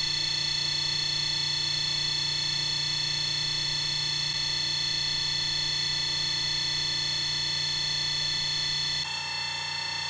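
Large homemade brushless (BLDC) motor spinning freely under its controller, a steady multi-tone electric whine with no rattling or other extraneous noise now that its loose rotor magnet has been re-glued. About nine seconds in, the tones shift and the level dips slightly.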